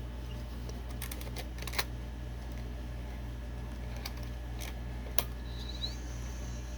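Plastic clicks and knocks of a VHS-C cassette being handled and loaded into a camcorder: a quick run of clicks about a second in, then single clicks near the middle, over a steady low hum.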